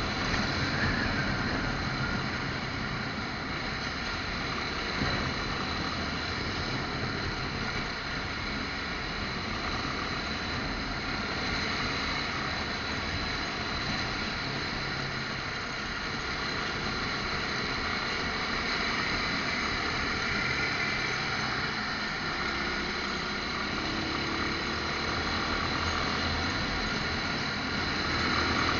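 Motorcycle engine running steadily while riding in city traffic, mixed with constant road and wind noise.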